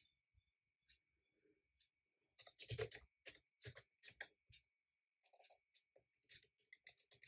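Faint keystrokes on a computer keyboard: a quick run of typing about two and a half seconds in, then scattered key presses, over a faint steady high-pitched tone.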